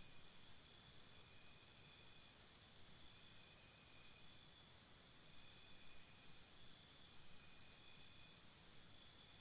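Faint insect chirping in a fast pulsing trill. It is stronger at the start and again from about six seconds in, with a weaker stretch in the middle.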